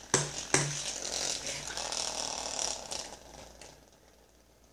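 Small plastic Chicken Little spinning-top toy set going through its gear: a couple of clicks, then a whirring, rattling spin that dies away over about three seconds. The gear is not engaging well, and the owner doesn't think it is really connecting.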